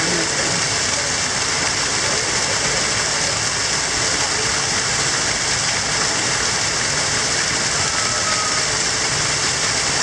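Small artificial waterfall running down a stone wall and splashing onto rocks: a steady, even rush of falling water.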